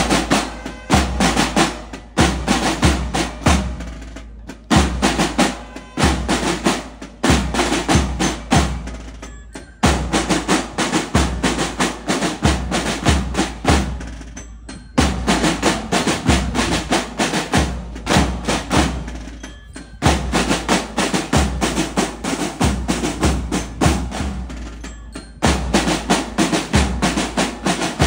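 Marching band's drum section playing a parade cadence: fast snare drumming and rolls over regular bass-drum beats, in repeating phrases of about five seconds.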